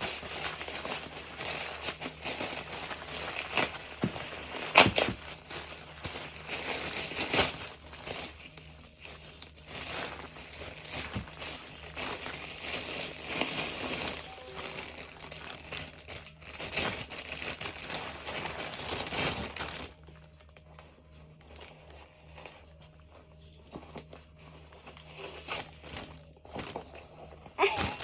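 Parcel packaging being handled and unwrapped, crinkling and rustling with a few sharp, louder crackles, then going much quieter for the last several seconds.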